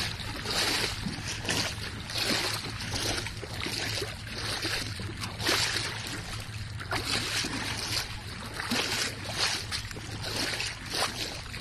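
Shallow seawater sloshing and splashing in repeated surges about every second or so, over a steady low hum.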